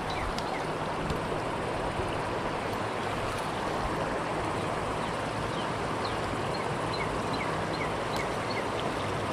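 Shallow creek water running steadily over rocks.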